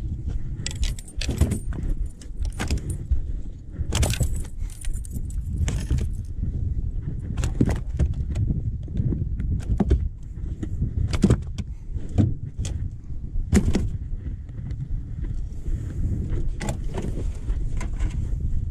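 Irregular sharp clicks, knocks and rattles as a walleye is handled on the boat deck and put into the live well, over a steady low rumble.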